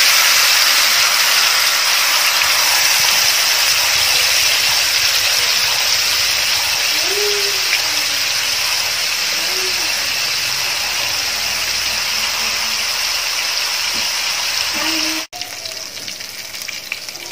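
Marinated chicken pieces sizzling in shallow oil in a nonstick frying pan. The sizzle breaks off suddenly about fifteen seconds in and goes on more quietly afterwards.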